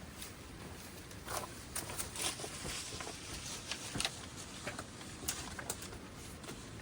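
Irregular sharp clicks and scuffs, loudest about a second and a half, two and four seconds in, over a steady rush of strong wind.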